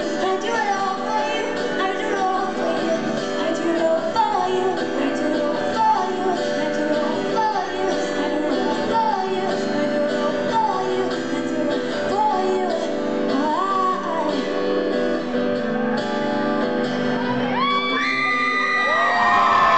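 Live pop band with a female singer, recorded from the audience in a large hall. Near the end, audience whoops and cheers rise over the music.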